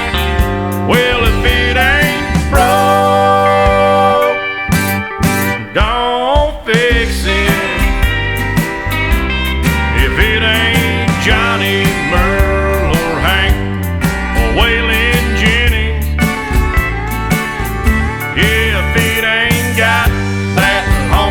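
Instrumental break in a country song: a band with steady bass and drums under a lead guitar playing bending notes.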